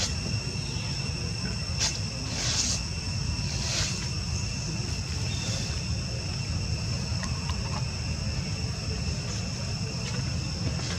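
Steady high-pitched insect drone holding several unchanging tones, over a constant low rumble, with a few brief rustling sounds about two to four seconds in.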